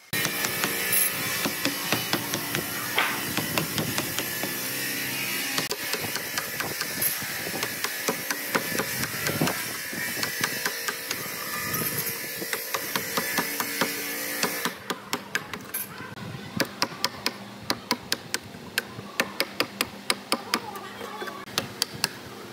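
Hammer driving a steel chisel into a weathered railroad timber, chopping out wood between saw kerfs to form a notch: repeated sharp strikes. For the first two-thirds the strikes sit under a steady hiss that cuts off suddenly; after that they come quickly, about two or three a second, over a quieter background.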